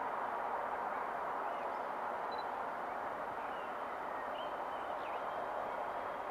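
Steady faint rushing of a GBRf Class 66 diesel locomotive approaching from far off, with a few brief bird chirps over it.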